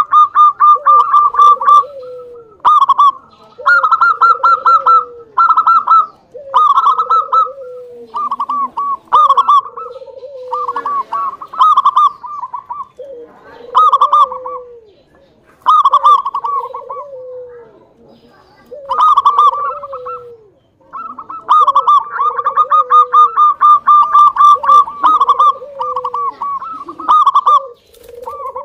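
Zebra doves (local perkutut) singing in repeated cooing phrases. Quick rattling runs of higher notes sit over a lower, falling coo that comes back about every second and a half.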